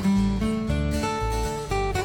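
Instrumental music led by acoustic guitar, with held notes over a steady repeating bass line.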